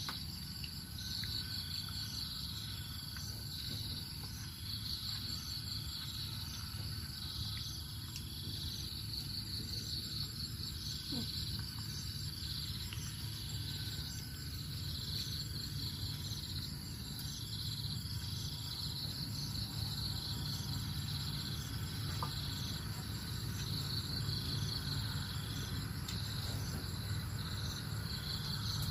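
Insects calling in the surrounding field: a steady, high-pitched pulsing chorus that repeats in a regular pattern about every two seconds, over a low steady rumble.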